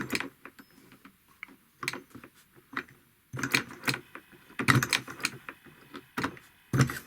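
Irregular clicks and knocks from a homemade solenoid engine: the coil snaps the piston and the flywheel jerks only now and then, in small clusters, as a loose homemade reed switch is adjusted by hand.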